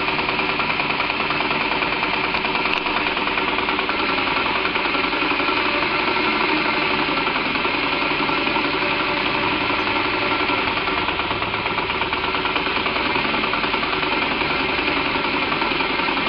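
Model crane's engine running at a steady, rapid beat, driving the winch as it slowly hoists a load.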